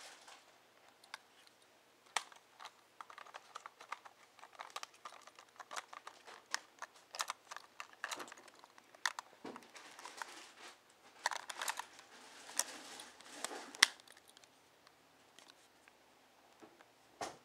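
Handling noises from a Nikon SB-600 Speedlight flash and its packaging: a run of light clicks and taps mixed with rustling, busiest between about 2 and 14 seconds, with one sharper tap near the 14-second mark.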